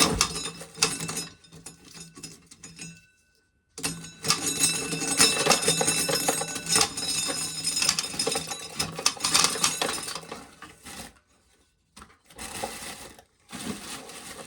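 Busy clattering and clinking of small hard objects being handled, with two short dead-quiet gaps.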